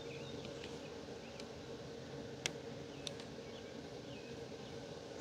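Quiet cutting at a metal sheet pan, with two sharp clicks of the knife or tongs on the pan about two and a half and three seconds in. Faint bird chirps and a steady low hum sit behind.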